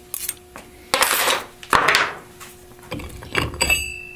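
Steel snap ring being pried off a Turbo 400 transmission's output carrier assembly: two metal scrapes, a few clicks, then a clink with a short high ring as the freed ring drops onto the workbench near the end.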